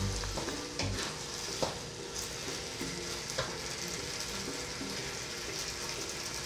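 Pork, banana peppers and onion sizzling in a nonstick wok while a wooden spatula stirs them. A few sharp knocks and scrapes of the spatula come in the first two seconds, then the sizzle runs on steadily.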